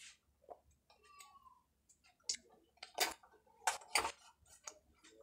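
Thin plastic cups of drinking water being handled and squeezed: a string of sharp clicks and crackles, the loudest about three to four seconds in.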